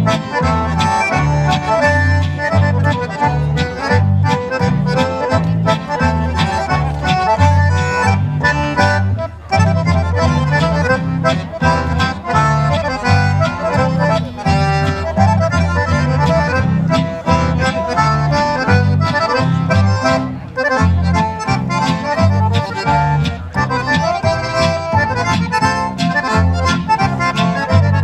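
A live band of two accordions, acoustic guitar and double bass playing traditional dance music, the accordions leading over a steady bass beat. The music dips briefly about nine seconds in.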